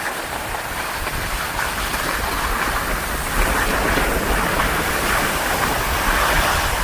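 Steady rushing noise of skiing downhill: skis sliding and scraping over snow, with a low rumble of wind on the microphone.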